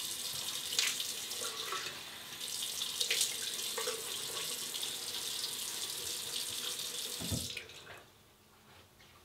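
A tap running into a bathroom sink while water is splashed onto a face, with a couple of sharper splashes. The flow stops suddenly about seven and a half seconds in.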